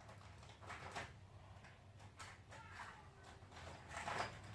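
Faint rustles and soft knocks of a small object being handled, twice a little louder, around 1 second in and near the end, over a low steady hum.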